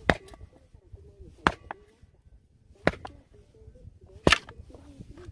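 Firewood being chopped: four sharp wooden strikes, about a second and a half apart.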